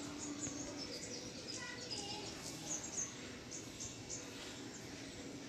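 Small birds chirping in the background: many short, high-pitched chirps scattered through, over a faint steady low hum.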